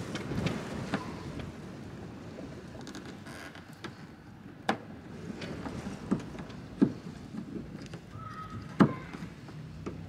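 Several sharp plastic clicks and knocks from a Fiat 500 exterior door handle being jiggled out of the door skin, the loudest near the end, over wind buffeting the microphone.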